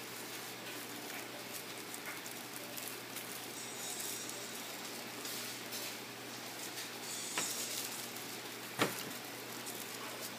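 Tissue paper rustling and crinkling as it is folded and pressed by hand, with two small sharp knocks near the end, the second louder.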